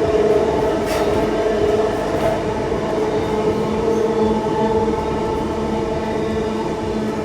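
Electric passenger train running, a steady motor whine over the rumble of wheels on rails. It starts suddenly and cuts off abruptly about seven seconds later.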